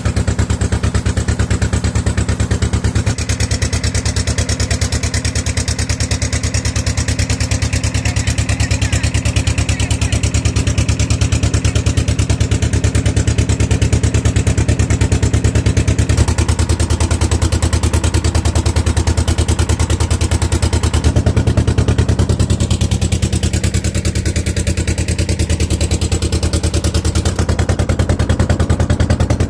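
Motorboat engine running steadily with a fast, even chugging, its tone shifting a few times as the engine speed changes.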